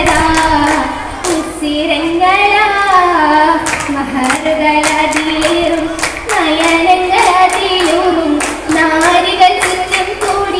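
Young female voices singing a melody, with sharp hand claps sounding through the song.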